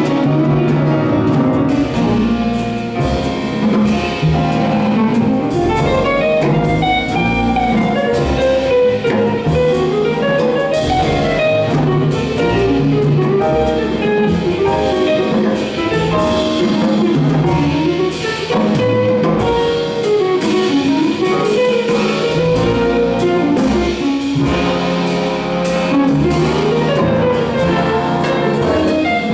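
Live jazz big band playing, with a tenor saxophone solo line winding up and down over drum kit and the band's horns.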